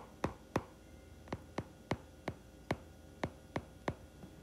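Stylus clicking against a tablet screen while handwriting: a faint, uneven run of short, sharp clicks, about three a second.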